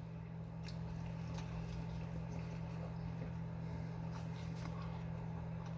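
Quiet chewing and small clicks of food being handled, over a steady low hum.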